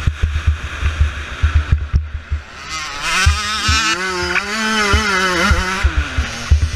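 A 2014 Kawasaki KX85's two-stroke single-cylinder engine racing around a motocross track, heard through wind buffeting and thumps from the rough track on the helmet-mounted microphone. About three seconds in, the engine note rises and holds high, then drops back near the end as the bike goes off the throttle.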